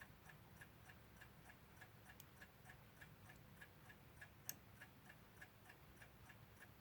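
Faint, steady ticking of a mechanical clock, about three ticks a second, with one slightly louder click about four and a half seconds in.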